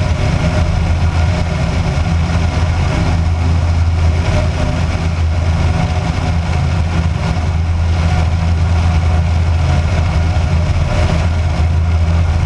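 Kitfox light aircraft's engine and propeller droning steadily in level flight, with air rushing past the outside-mounted camera.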